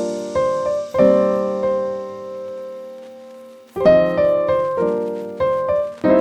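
Background piano music: slow chords struck a few at a time and left to ring out and fade, with a long held chord dying away before new notes come in near the middle.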